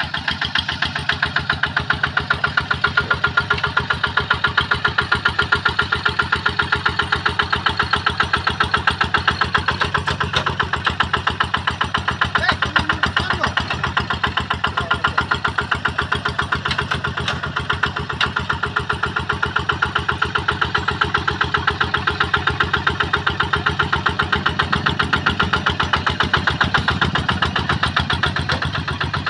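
Quick QH-11 combine harvester's engine running steadily with a fast, even beat, getting louder right at the start.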